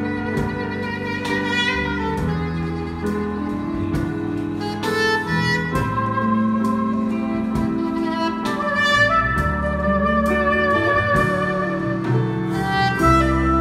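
Live jazz band playing: a soprano saxophone carries the melody over electric bass, drum kit with cymbals, keyboard and electric guitar.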